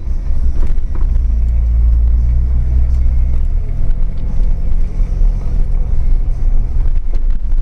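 Jeep Wrangler engine and drivetrain running steadily as it crawls along a rough dirt trail in four-wheel-drive low range, a deep rumble with a few knocks from the bouncing vehicle. The engine note changes about three and a half seconds in.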